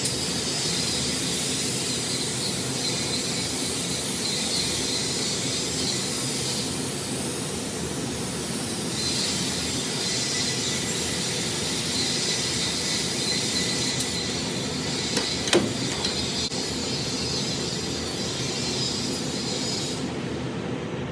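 Steady mechanical hiss with a faint low hum, like running machinery; a short click sounds about two thirds of the way through, and the high hiss drops away near the end.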